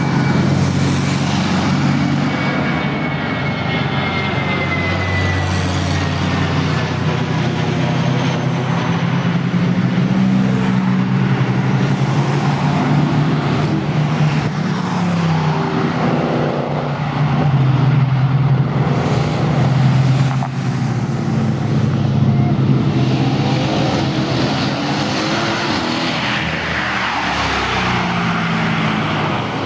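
Cars pulling away and driving past one after another. The engines rev up and down, their pitch rising and falling several times.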